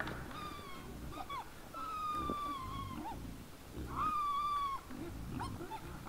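Wild boars squealing while feeding: a string of high-pitched squeals, short ones mixed with a long, slightly falling squeal about two seconds in and the loudest, held squeal about four seconds in.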